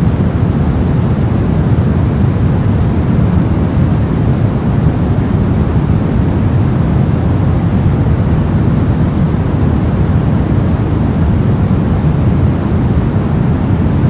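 Brown noise: a steady, unchanging rumble of random noise, strongest in the low end and rolling off toward the highs, with no events or pitch in it.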